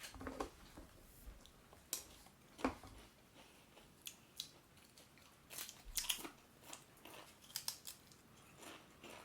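Pringles potato crisps being bitten and chewed, a scattering of irregular sharp crunches.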